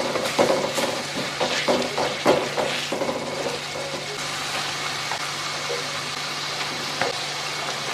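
Food frying in a pan with a steady sizzle, stirred with a utensil that scrapes and knocks against the pan, most often in the first three seconds.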